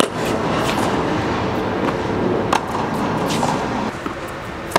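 Tennis balls struck with rackets: sharp pops at the start, midway and just before the end, over a steady background noise.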